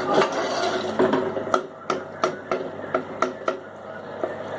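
A metal utensil knocking against a cooking pot in a quick series of about seven sharp, slightly ringing knocks, roughly three a second, starting about one and a half seconds in.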